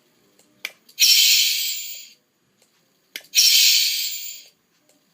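Two hissing bursts of air, each about a second long and fading away, each preceded by a sharp click. They repeat about every two and a half seconds.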